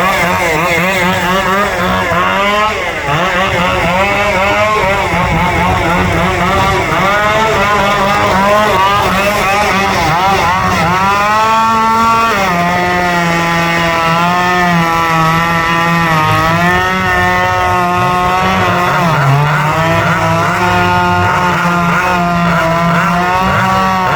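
Racing chainsaw from the Hot Saw Limited class running at high revs without a break. Its whine keeps dipping and recovering in pitch, as a saw does when loaded in the cut.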